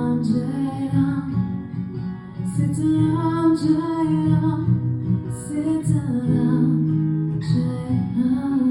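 Acoustic guitar strummed in a slow devotional song, with a woman's wordless singing drawn out over held notes.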